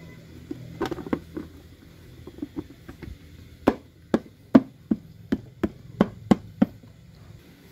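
Sharp knocks of tools or hard parts during work on the motorcycle. A few softer clicks come about a second in, then a quick run of about nine sharp knocks, roughly three a second.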